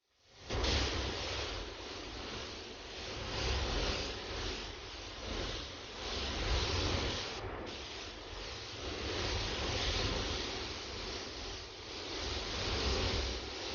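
Compressed-air paint spray gun hissing steadily while spraying water-based base coat for a spot-repair fade-out at low pressure, over a low rumble. The hiss swells and eases gently and breaks off briefly about seven and a half seconds in.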